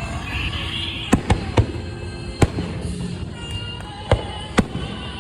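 Fireworks going off: about six sharp bangs at irregular intervals, two close together about a second in, over a steady low rumble.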